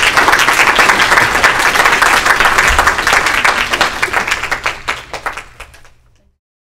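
An audience applauding, thinning out to scattered claps after about four seconds and cutting off about six seconds in.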